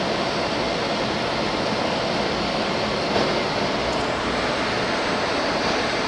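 Steady, even roar of industrial machinery running, from the sawdust carbonization furnace plant and its blower equipment.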